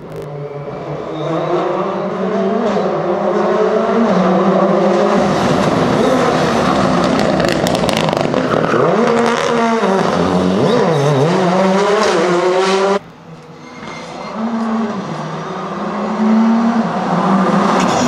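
Rally cars at full race pace: a Ford Fiesta rally car comes in loud, its engine revs rising and falling sharply through gear changes, with a burst of sharp cracks about halfway. The sound cuts off suddenly, and a Škoda Fabia Rally2's turbocharged four-cylinder is heard coming in, revs again rising and falling.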